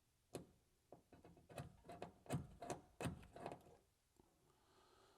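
A run of about ten sharp metallic clicks and taps at irregular spacing over a few seconds, from screw-hole positions being punched and marked into the door's sheet metal.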